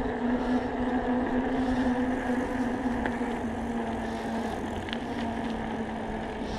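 Electric bike motor whining with a steady hum under pedal power, with wind rushing over the microphone and tyre noise beneath it. Its pitch eases slightly about two-thirds of the way through.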